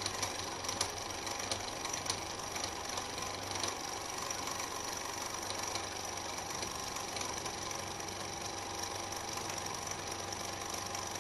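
Small DIY thermoacoustic Stirling engine running steadily, a continuous mechanical whirr over a low hum, with a few light clicks in the first two seconds.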